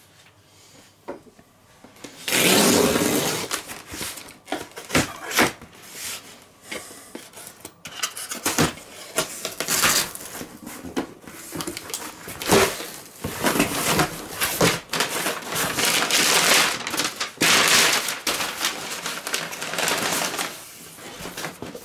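Taped cardboard shipping box being opened by hand: flaps pulled and torn open, brown packing paper rustling and crinkling, with scattered knocks and scrapes of cardboard. The loudest rustle comes about two seconds in.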